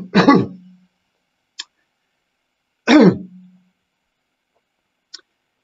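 A man's short wordless vocal sounds, twice, about three seconds apart, each falling in pitch, like a throat-clearing hum. Two faint clicks come between them and near the end.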